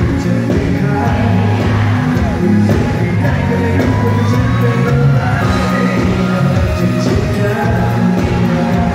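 Live pop-rock band music with a singer's voice over it, played loud through a concert sound system, with some audience shouting and whooping mixed in.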